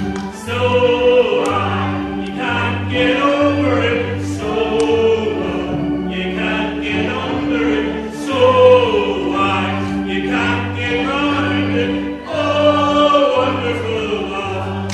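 Voices singing a gospel chorus together over keyboard accompaniment, with held chords and a regularly pulsing bass note beneath the melody.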